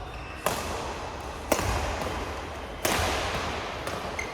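Badminton rackets striking the shuttlecock three times in a rally, each hit a sharp crack about a second apart, the middle one the loudest, with an echo after each.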